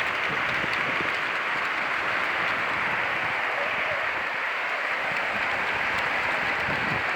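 Steady hiss of sea water washing and foaming on the shore.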